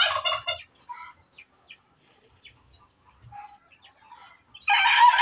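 Chickens calling: a short loud call right at the start, a few faint chirps, then a rooster crowing near the end.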